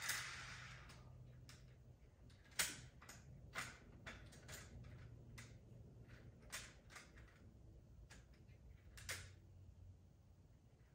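Scattered light clicks and knocks of model train cars and plastic track being handled by hand, a dozen or so irregular taps with two sharper ones about two and a half seconds and nine seconds in.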